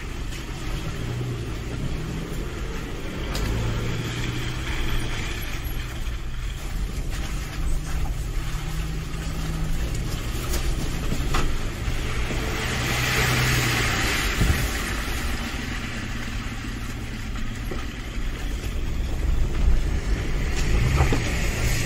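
Toyota FJ Cruiser's 4.0 L V6 running at low revs while crawling a muddy dirt trail, its note rising and falling with the throttle. Tyre and gravel noise swells for a few seconds past the middle, with a few scattered knocks from the body and suspension.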